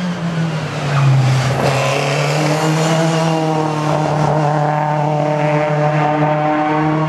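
Rally car engine running loud at steady revs. Its pitch drops slightly and it gets louder about a second in, then it holds an even note.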